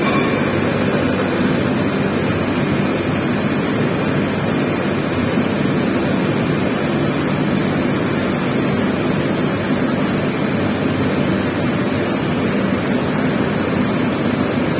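Gravure printing press running at production speed: a loud, steady machine noise with a low hum.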